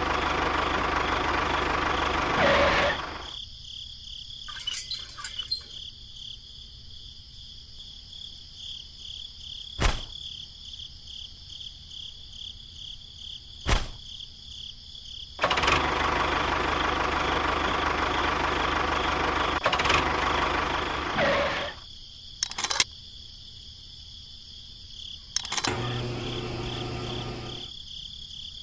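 A small motor running in two stretches of a few seconds each, with a few sharp clicks between them and a short low hum near the end. A faint steady high hiss runs underneath.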